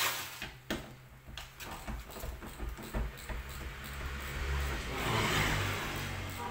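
An engine running with a steady low hum, swelling to a peak about five seconds in and easing off, with a few sharp clicks in the first three seconds.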